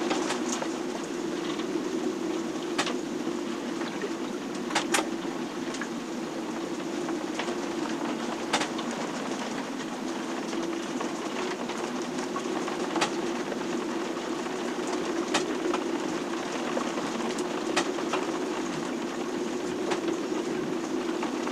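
Storm noise heard from inside a sailboat's cabin: a steady rushing drone with sharp knocks and clicks every few seconds from the boat around the listener.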